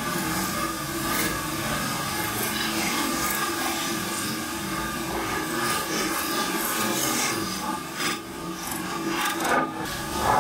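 Rushing water and wind across the deck of a VO65 racing yacht sailing fast through rough seas, with spray pouring over the boat and a steady hum underneath. Louder splashes come about eight and nine and a half seconds in.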